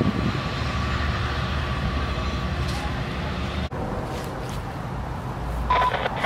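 Two Amtrak F59PH diesel locomotives approaching with a steady low engine rumble, cut off abruptly a little under four seconds in. Near the end, a distant train horn begins to sound.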